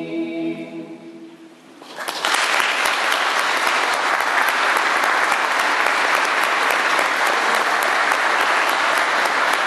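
A mixed choir's final sung chord dying away, then about two seconds in the audience breaks into steady applause.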